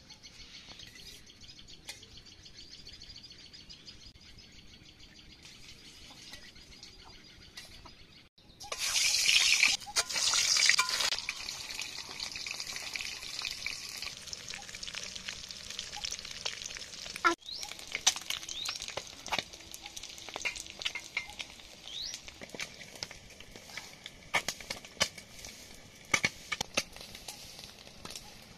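Peeled boiled eggs frying in hot oil in a steel kadai: a sudden loud burst of sizzling about eight seconds in, then steady sizzling with scattered sharp pops and spatters. Before the sizzling starts, birds chirp.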